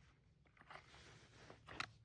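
Near silence with faint rustling and small handling clicks, a sharper click near the end.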